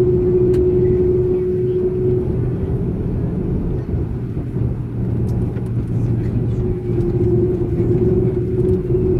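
Airbus A330 cabin noise: a steady engine hum over a low rumble. A steady tone in the hum fades about two seconds in and returns near the end.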